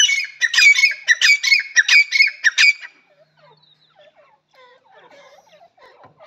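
Grey francolin (teetar) giving its loud, rhythmic territorial call, a phrase of sharp notes repeated about three times a second, which stops about three seconds in. After that come only faint, lower, scattered clucking notes.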